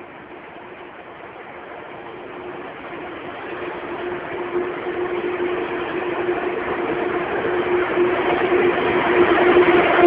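ICE 2 high-speed electric train pulling out of the station, a steady hum with rolling noise that grows steadily louder as the train gathers speed past the platform.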